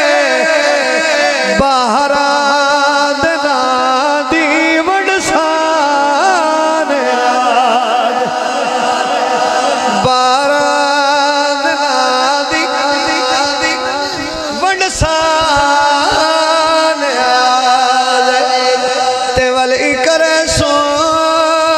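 A man singing a Punjabi devotional song into a microphone, drawing out long, wavering, ornamented notes with no break into speech.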